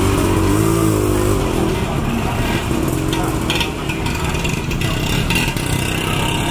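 Motorbike engine running close by, strongest in the first second and a half, over steady street bustle with scattered voices.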